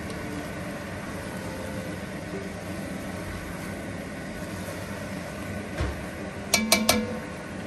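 Metal tongs stirring beef stew in a cast iron Dutch oven, with a few sharp clinks of the tongs against the pot about six and a half seconds in, over a steady background noise.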